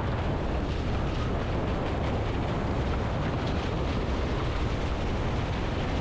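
Steady wind buffeting a sailboard-mounted action camera's microphone, with water rushing past the board as it planes.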